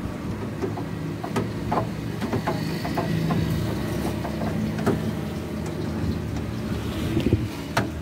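Screwdriver and small parts clicking and tapping against the metal and plastic of a refrigerator's freezer compartment, a string of small irregular knocks over a steady low background rumble.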